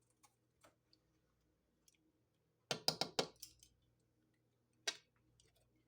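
Small clicks and clinks from handling spice containers and a measuring spoon while measuring out black pepper. A couple of light ticks come first, then a quick cluster of sharp taps about three seconds in, and one more click near the end.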